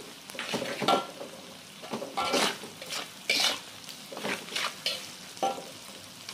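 Metal spatula scraping and stirring sliced shallots, garlic and chillies in a wok, in irregular strokes with a brief metallic ring, over a steady sizzle of hot oil.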